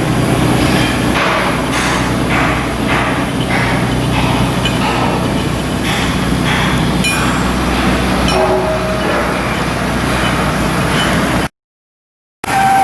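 Shipbuilding work noise: machinery running with a steady low hum, and a run of knocks about two a second for a few seconds near the start. The sound cuts out briefly near the end.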